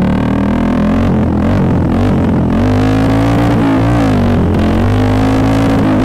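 1976 Honda XL350's single-cylinder four-stroke thumper engine running under way. The revs sag about a second in, pick up again at about two and a half seconds, dip briefly around four seconds, then hold steady.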